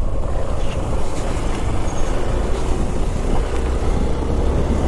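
Hero XPulse 200 4V motorcycle riding steadily: a continuous engine drone with road noise from the tyres on the wet road.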